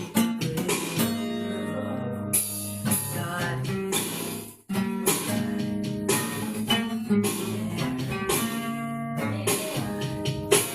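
Guitar music playing, with a brief break about four and a half seconds in before it carries on.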